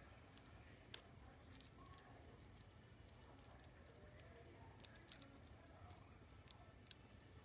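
Links of a plastic chain bracelet clicking and tapping against each other as they are handled and fitted together: scattered light clicks, the sharpest about a second in and near the end.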